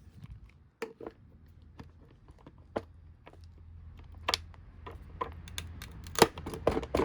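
Hard plastic parts of a Bissell CleanView Helix vacuum cleaner clicking and knocking as they are handled and pried at during disassembly. Scattered small clicks, with a louder run of knocks near the end.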